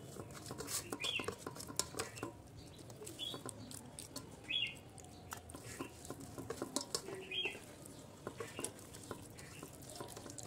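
Fingers mixing rice and fish curry on a steel plate: a run of small, quiet clicks and scrapes. A bird chirps briefly every second or two in the background.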